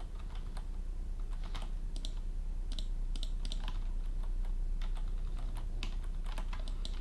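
Scattered, irregular clicks of a computer keyboard and mouse as a 3D modelling program is worked, over a steady low hum.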